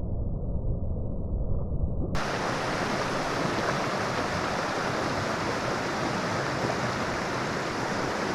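Flowing river water rushing steadily. For about the first two seconds it is muffled, heavy in the low end, then it cuts over abruptly to the clear, full rush of the water.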